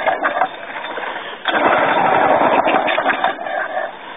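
Victa Utility two-stroke lawn mower engine firing in bursts: it runs, falters for about a second, catches again for about two and a half seconds, then dies away near the end. It is being cold-started with too little fuel to keep running.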